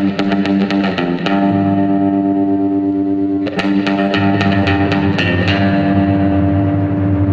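Background music led by a distorted electric guitar over a bass line, with sustained chords and quick picked notes.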